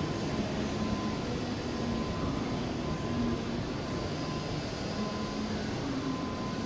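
Class 66 diesel freight locomotive with its two-stroke V12 engine running, a steady rumble with a faint high tone that comes and goes.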